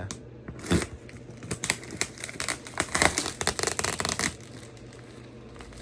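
Cardboard delivery box being opened and its packing rummaged through by hand: a quick run of crinkling, rustling and crackling that eases off after about four seconds.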